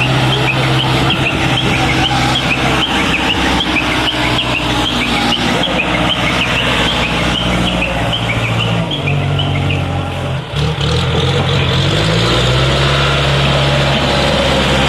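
Diesel engine of a backhoe loader running steadily; its engine speed drops about nine seconds in, dips briefly, and picks up again around twelve seconds. Rapid high chirps sound over the engine in the first half.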